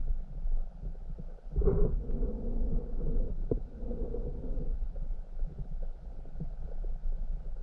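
Muffled underwater sound heard through a camera's waterproof housing: a low rumble with scattered small clicks and knocks, and one louder burst about two seconds in.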